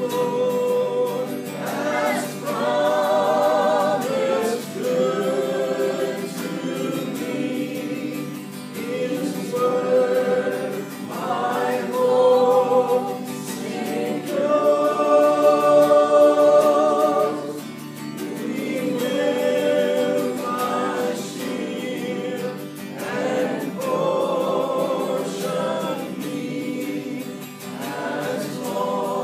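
A small group of voices singing a gospel hymn together, with long held notes.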